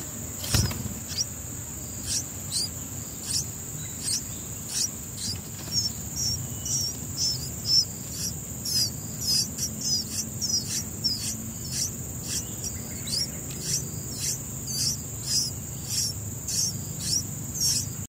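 Bulbul nestlings begging with short, high, repeated cheeps that come more often from about six seconds in, over a steady high-pitched insect drone. A single thump about half a second in.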